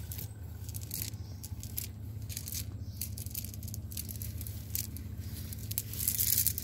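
Crackling and rustling of a cast net being handled by hand as fish are picked out, with scattered small clicks and rattles, loudest about six seconds in, over a steady low hum.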